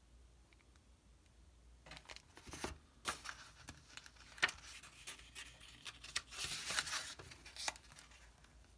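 Paper pages of an old booklet being handled and turned: irregular rustling and crinkling with sharp little clicks, starting about two seconds in and stopping shortly before the end.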